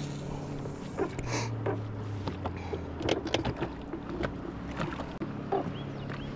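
Water lapping against a bass boat's hull under a steady low hum that drops in pitch about a second in and rises again near the end, typical of a bow-mounted electric trolling motor being adjusted. Scattered light clicks and taps come from handling and casting a spinning rod and reel.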